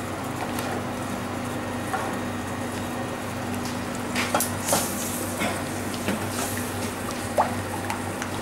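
Silicone spatula stirring and scraping in steel saucepans over a steady kitchen hum, with a few light clinks of utensil against pan.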